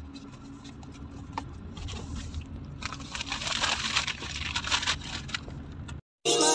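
Low steady rumble of a car cabin. From about three seconds in, papery rustling and scraping as a white cardboard box is handled close by. Music starts just at the end.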